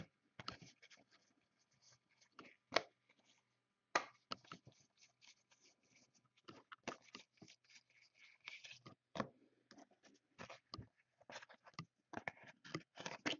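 Trading cards being handled and flipped: short, irregular scrapes of cardstock sliding over cardstock, with a few sharper clicks.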